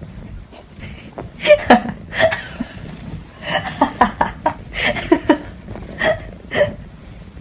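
A person chuckling and laughing in short bursts, with a few light clicks in between.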